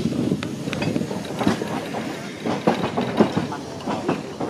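Double-deck electric heritage tramcar running along the track: steady rumble with irregular knocks and clatter from the wheels on the rails and the rattling car body.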